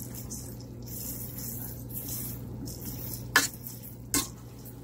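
Pancit bihon noodles, shrimp and vegetables being stirred and tossed with a cooking utensil in a pot, with a soft steady hiss. The utensil clicks sharply against the pot twice, about three and a half and four seconds in.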